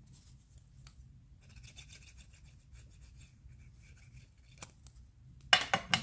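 Small black cardstock pieces and a glue tube being handled: faint rustling and light ticks, then a quick run of sharp, crisp clicks near the end as a cardstock tab is picked up and folded.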